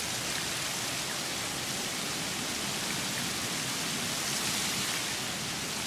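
Rain pouring down steadily in a storm, an even hiss with no breaks.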